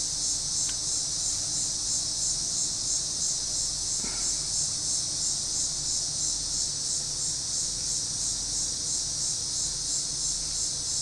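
A steady, high-pitched insect chorus, like crickets, pulsing several times a second.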